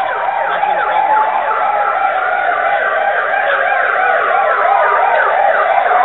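Several emergency-vehicle sirens sounding at once, overlapping quick up-and-down yelps and a slower rising and falling wail. They grow steadily louder as the vehicles approach.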